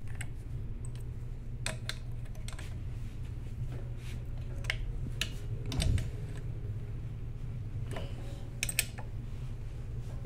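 Scattered sharp metal clicks and a knock from a socket ratchet and hand tools working the bolts on the aluminium cylinder head of a Craftsman air compressor, over a steady low hum.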